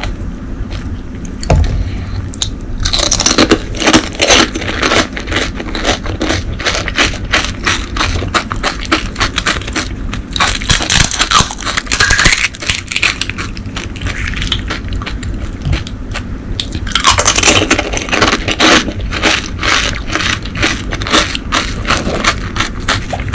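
Close-miked crunching and chewing of crisp panipuri shells filled with spicy pani: dense crackling crunches in waves, strongest a few seconds in, around the middle and about three quarters through.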